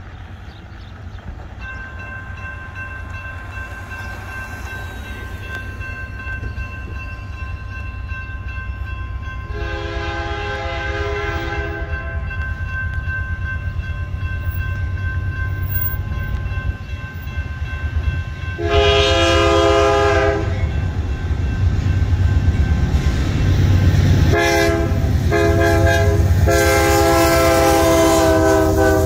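A BNSF diesel freight locomotive's horn sounds the standard grade-crossing signal: two long blasts, a short one, then a long one held as the locomotive reaches the crossing. Over the train's growing rumble, the crossing-signal bell rings steadily from a couple of seconds in.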